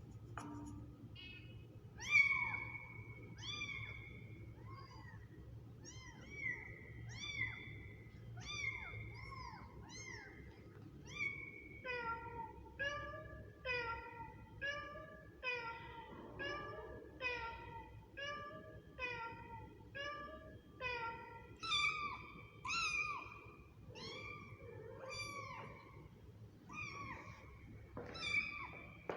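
Kittens mewing over and over: short, high-pitched mews, each rising and falling, about one a second. From about twelve seconds in a second, lower-pitched voice joins and the mews come faster and overlap.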